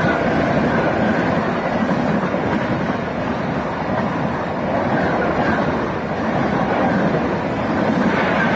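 Rajdhani Express passenger coaches passing close at speed: a steady rushing rumble of wheels on rail and displaced air, swelling and easing slightly as the coaches go by.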